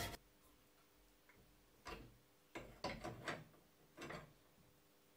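A few faint, short metallic clicks and knocks, about two seconds in and again around three and four seconds. They come from the square steel tube being turned and re-clamped in a bench vise between hacksaw cuts.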